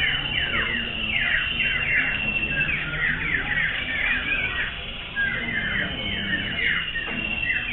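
Several common ioras singing at once: dense, overlapping runs of quick falling whistled notes over a long held high whistle.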